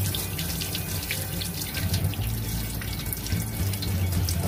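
Tap water running into a stainless steel sink, the stream splashing over a hand as a salted egg is rinsed under it.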